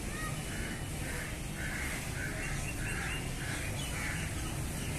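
Crows cawing in a quick run of harsh, repeated calls over a steady low background rumble.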